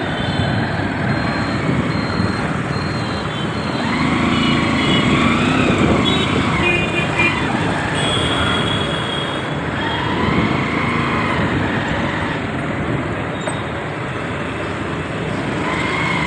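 Busy city road traffic noise, heard from a moving motorcycle, with scattered short tones from other vehicles.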